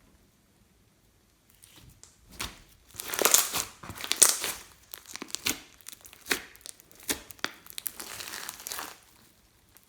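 Slime being squeezed and stretched by hand, giving dense crackles and pops that begin after a short silence and are loudest early on.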